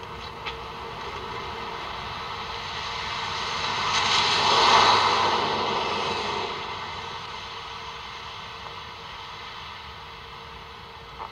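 A motor vehicle passes by. Its engine and tyre noise grows over about four seconds, peaks about five seconds in, then fades away.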